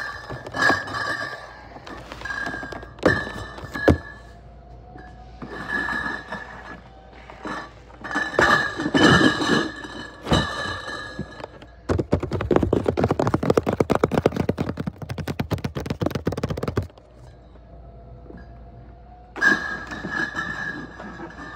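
Cardboard cases of beer bottles being handled and stacked on a pallet: repeated thunks as cases are set down, with scraping as they slide. A dense rattling runs for about five seconds in the middle.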